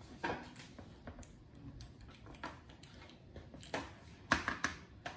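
Fingers and fingernails picking and tapping at the edge of a large metal pencil tin's lid while trying to pry it open. It makes scattered small clicks and scratches, with a few louder clicks about four seconds in.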